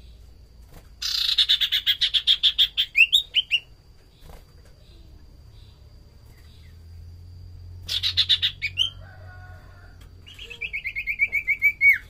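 Common iora (sirtu/cipoh) singing: three bursts of fast repeated whistled notes, about eight a second. The first begins about a second in and ends in slurred rising notes, a short one comes near the middle, and a descending trill comes near the end. A faint steady high tone runs underneath.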